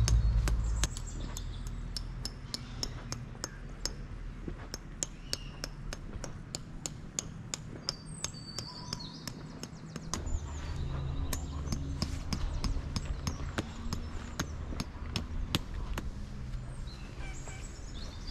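Sharp knocks or taps repeated at a fairly even pace, about two to three a second, with birds chirping.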